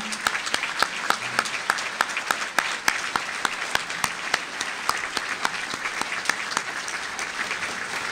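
Audience applause: many hands clapping steadily, with one person's louder, evenly spaced claps close to the microphone.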